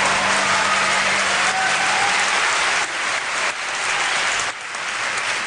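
Audience applauding. A low held note of the backing music fades out about two seconds in, and the clapping thins somewhat after about three seconds.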